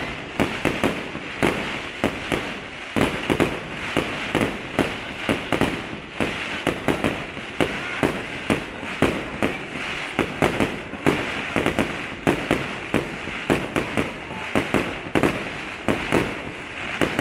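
Fireworks going off in a rapid, unbroken series of bangs, about two to three a second, over a constant hiss.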